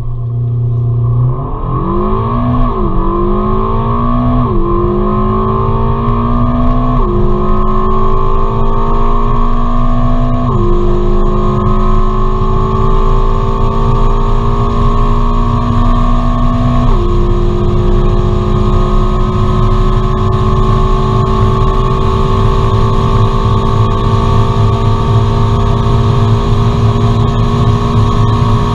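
Ferrari California T's 3.9-litre twin-turbo V8 at full throttle from a standstill, heard from inside the cabin. Its pitch climbs and drops back at each of five upshifts, which come further apart each time. After the last shift the note rises slowly at very high speed while a rushing noise builds.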